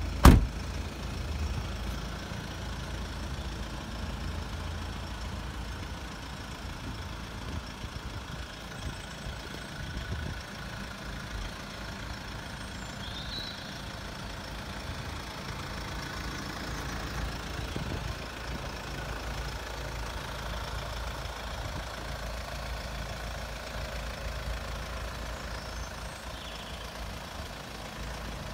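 Mercedes-Benz E-Class convertible's engine idling steadily, with a single loud thump just after the start.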